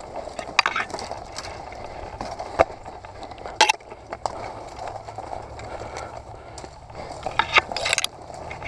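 Footsteps crunching through dry grass and brush, with rustling and a few sharp snaps of twigs and branches.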